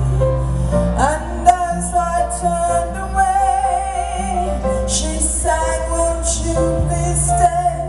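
Live band music with a woman singing, her voice held in long, wavering notes over sustained instrumental chords.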